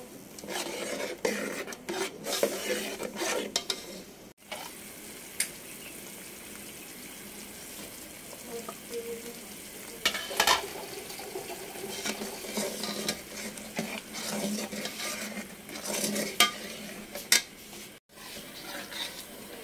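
A metal ladle stirring and scraping through a simmering, sizzling curry in a metal pot. There are sharp clinks of the ladle against the pot about halfway through and again near the end.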